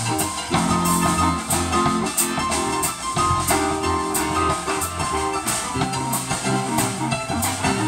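Live blues band playing an instrumental passage: electric guitars, electronic keyboard and drum kit, with steady drum and cymbal strokes keeping the beat.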